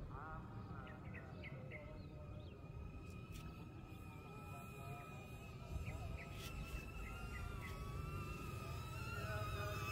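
Small quadcopter drone's propellers buzzing steadily, a high whine that wavers a little in pitch, with a few short bird chirps in the first couple of seconds.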